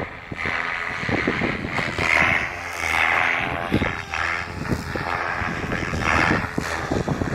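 Goblin 700 Competition electric RC helicopter with a three-blade main rotor flying, its rotor and motor whine swelling and fading as it manoeuvres. Gusts of wind buffet the microphone throughout.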